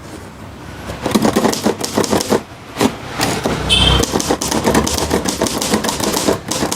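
Manual typewriter being typed on: a quick, uneven run of sharp key and typebar strikes starting about a second in, with a brief ringing tone and a low thud a little under four seconds in.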